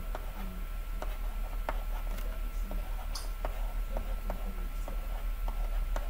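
Light, irregular clicks of a stylus tapping a tablet screen during handwriting, two or three a second, over a steady low electrical hum.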